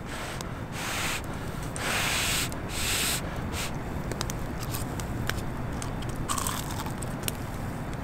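Biting into a piece of freshly deep-fried, crispy battered chicken: three crunchy bites in the first three seconds, then quieter chewing with small clicks.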